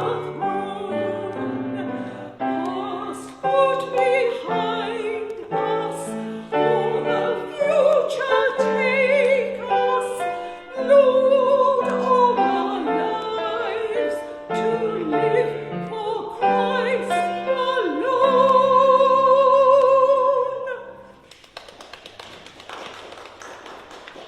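Classical-style solo singing with instrumental accompaniment. The song ends about 21 seconds in on a long held note with vibrato, and a faint noise follows.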